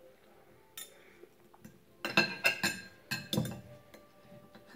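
Metal fork and knife clinking and scraping against a dinner plate while cutting meat. A faint clink comes about a second in, then a quick run of sharp clinks and scrapes from about two seconds in, one of them ringing on briefly.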